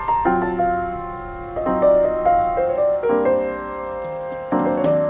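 Background piano music: chords struck about every second and a half under a simple melody of single notes.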